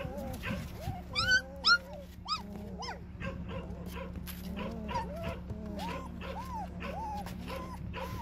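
A litter of young puppies squealing and whimpering, several voices overlapping: two sharp high squeals about a second and a half in are the loudest, followed by a steady run of short rising-and-falling whimpers. The puppies are crying from hunger and cold.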